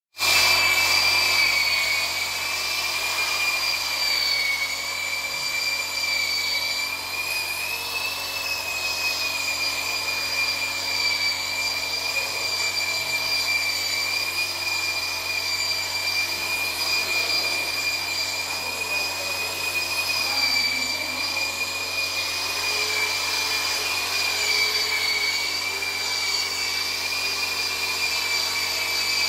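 Handheld electric polishers with round buffing pads whining steadily as they buff a freshly laid oxide floor to a shine. The high motor whine wavers slightly in pitch as the tools are pressed and moved over the floor.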